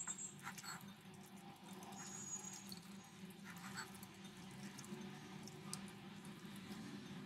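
Faint wet squelching and small clicks of a hand mixing raw chicken pieces with ginger-garlic paste in a glass bowl, over a low steady hum.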